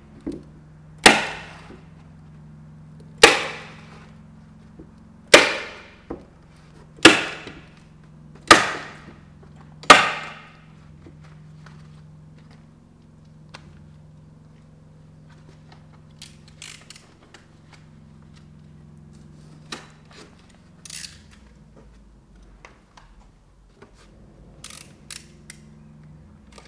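Hand staple gun firing staples through airtight membrane into the timber window frame: six sharp snaps one to two seconds apart, then quieter scattered clicks and rustling as the membrane is handled.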